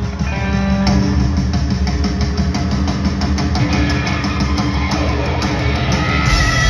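Live rock band playing in an arena: electric guitars holding sustained notes over a steadily hit drum kit, loud and reverberant. Brighter, higher notes come in near the end.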